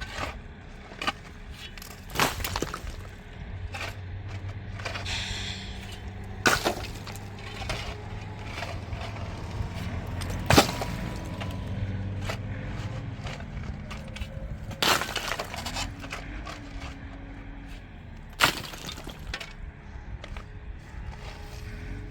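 A string of sharp knocks and cracks, about eight over twenty seconds at irregular spacing, the loudest about halfway through, over a low steady hum.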